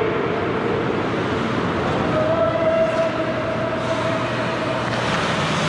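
Ice hockey play: skates scraping the ice over a steady rink rumble, with one long held tone in the middle.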